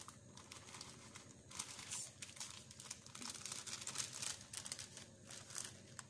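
Wire whisk scraping quickly around a glass bowl, stirring dry cake mix into a wet batter, with a plastic bag of cake mix crinkling as it is poured in. The rapid scratchy strokes get busier about a second and a half in.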